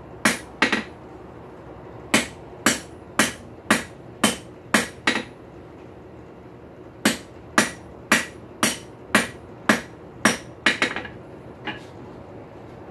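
Hand hammer striking hot high-carbon steel on an anvil, sharp blows about two a second in three runs with short pauses between, as the steel is forged into a square taper and its corners are knocked down.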